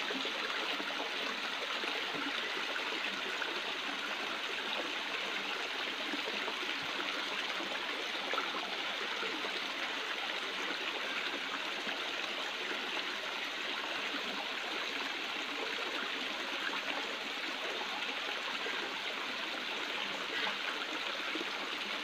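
Shallow rocky river running steadily, a constant rush of water over stones.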